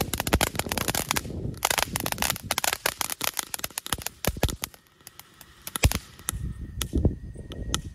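Diamond Fireworks Surprise Super Jumbo crackling fountain burning, a dense rapid crackle of small pops. The crackle thins out after about four seconds to scattered pops, a few of them louder near the end.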